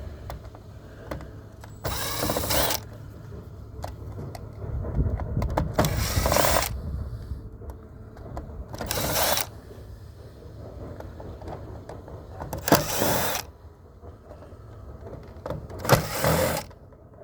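Power drill/driver running in five short bursts, each about half a second to a second long, backing screws out of an iRobot robot vacuum's plastic housing. A steady low wind rumble lies underneath.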